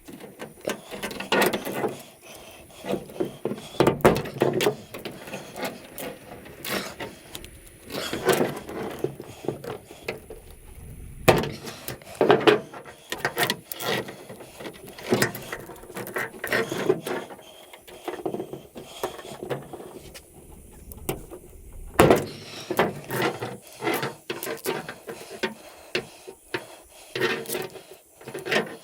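Aluminum armored cable being bent apart and cut by hand to free the wire inside: irregular clicks, snips and short scraping and squeaking of metal, with a few sharper knocks.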